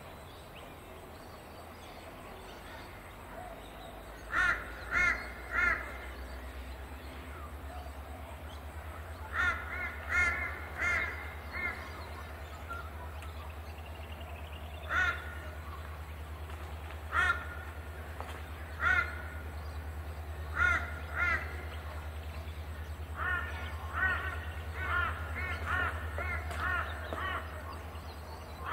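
A crow cawing: short harsh calls in runs of two to four and some single calls, with a quicker run of calls near the end, over a steady low hum.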